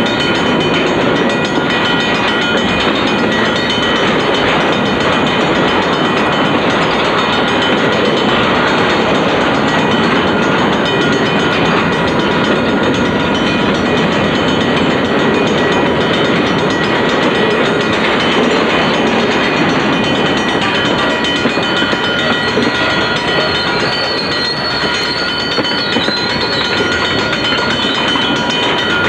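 A freight train of autorack, tank and covered hopper cars rolling steadily past, with the loud continuous rumble and rattle of steel wheels on rail.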